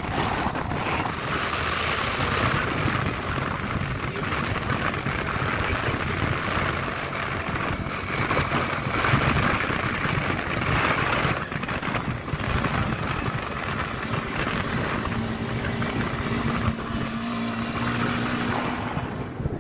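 Steady wind noise on the microphone of a sport motorcycle riding at about 40 km/h, with the bike's engine running underneath.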